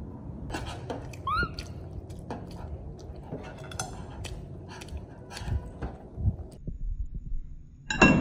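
Kitchen utensils and dishes knocking and clicking during cooking, with a short squeak about a second in. Near the end comes a louder clatter that rings briefly.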